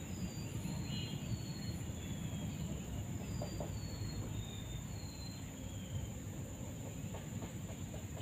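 A bird calling a series of short, high whistled notes, each sliding down in pitch, roughly one every half second to a second, over a steady low rushing noise and a thin, steady high whine.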